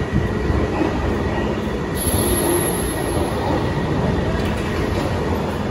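London Underground Piccadilly line tube train moving along the platform: a steady, loud rumble of wheels on rails, with a thin high wheel squeal from about two seconds in, lasting a second and a half.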